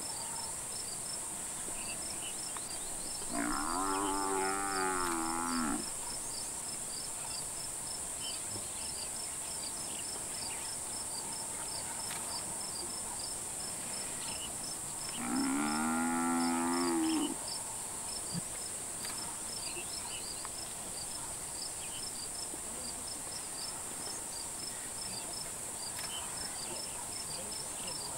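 African buffalo bellowing in distress as lions hold it: two long calls, one about three seconds in and one about fifteen seconds in, each lasting about two seconds. A steady high insect hiss with fast, regular chirping runs underneath.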